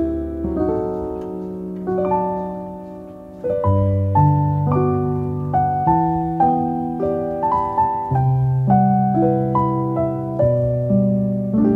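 Background solo piano music: held chords at first, then separate notes struck at an even pace of about two a second from a few seconds in.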